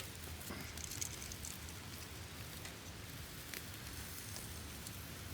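Campfire and barbecue grill sizzling and crackling: a steady hiss with scattered sharp pops, the loudest pops near the start and about a second in.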